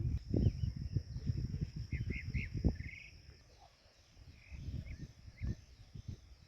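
Outdoor nature sound: wind buffeting the microphone in irregular gusts, with a few short bird chirps about two seconds in and a steady high insect trill behind.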